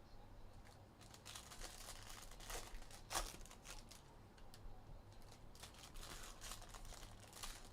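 Faint crinkling and rustling from trading cards and their plastic packaging being handled, with scattered small clicks and one slightly louder rustle about three seconds in.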